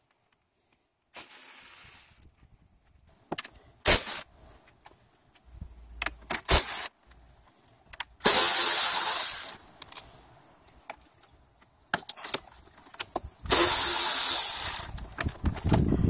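Cordless electric ratchet with a Phillips bit running in short bursts as it backs out the screws holding the A/C condenser bracket to the radiator. The two longest runs, each over a second, come just past the middle and near the end, with sharp clicks and tool clatter between them.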